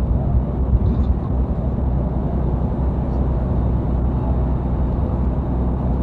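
Inside the cab of a loaded semi-truck cruising at motorway speed: a steady, low engine drone with road noise.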